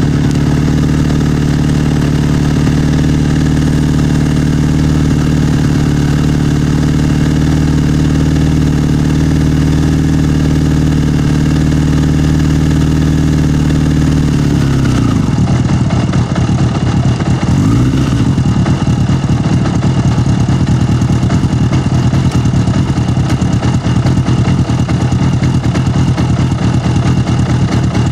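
Motorcycle engine idling steadily. About halfway through the even note breaks up into a rougher, uneven sound, with a short rise in pitch a few seconds later.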